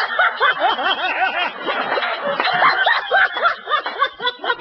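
Audience laughter: many short, overlapping laughs from a room full of people, thinning out near the end.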